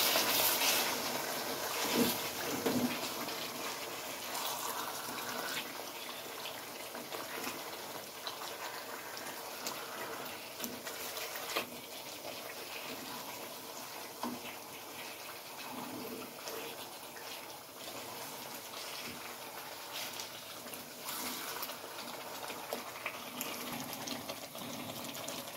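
Chicken pieces sizzling in thick spiced masala sauce in a pot, with a silicone spatula stirring and turning them, giving a few soft knocks against the pot.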